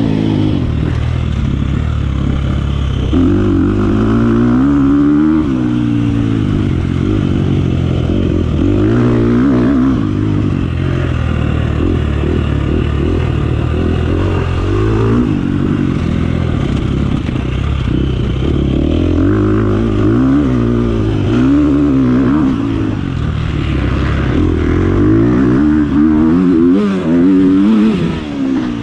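Dirt bike engine revving hard as it is ridden over an enduro test course, its pitch climbing and falling over and over as the throttle opens and closes and the rider shifts gears.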